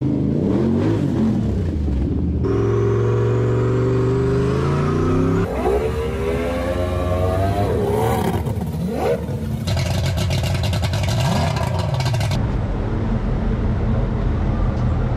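Engines running in a string of short cuts: a steady engine hum, then revving that rises and falls in pitch in the middle, then a rattling stretch and a steady low rumble near the end.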